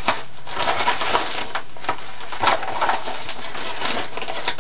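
Paper and packaging rustling and crinkling as items are handled, with many small irregular crackles.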